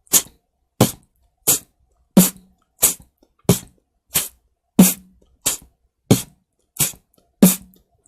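Beatboxer performing a slow four-beat pattern of mouth kicks and lip-on-teeth 'flubbed kick' hi-hats, an evenly spaced stroke about every two-thirds of a second. Every fourth stroke carries a deeper low boom.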